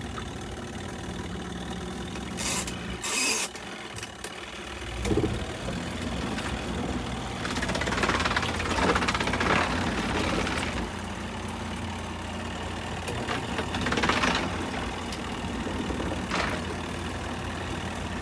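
Garatic portable mini twin-tub washing machine running: a steady motor hum with louder noisy swells, and a couple of knocks about three seconds in.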